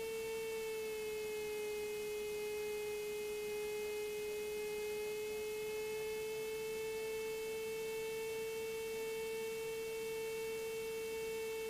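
Steady electrical whine in the Cessna 182RG's cockpit intercom audio, one strong mid-pitched tone with fainter higher tones, drifting slightly in pitch.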